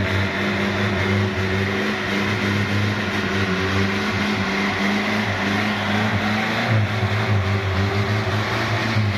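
Vehicle engines labouring under heavy load, an old 4x4 towing a pickup truck through deep mud, with a steady drone that holds a fairly even pitch.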